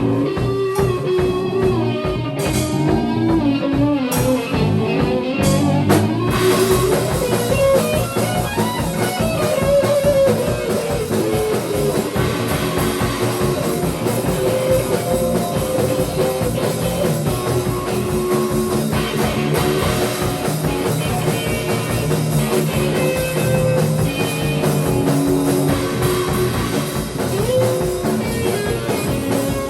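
Instrumental rock jam: electric guitar playing melodic lines over bass and a drum kit keeping a steady beat. About six seconds in, the cymbals come in and play continuously.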